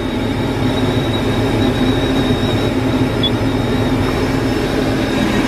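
Komatsu D375A-6 dozer's six-cylinder turbodiesel running steadily, heard from inside the cab as an even low drone with a thin steady high whine over it.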